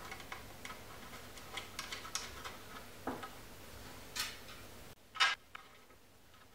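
Small clicks and taps of plastic mounting pins being pushed into holes in a plywood printer frame plate. Two sharper clicks come near the end.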